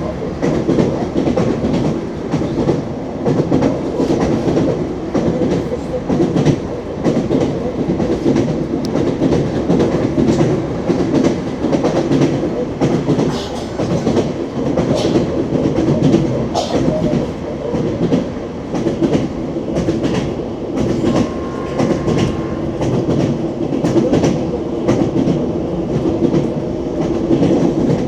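ES2G 'Lastochka' electric train running on the rails, its wheels clicking over rail joints over a steady rumble.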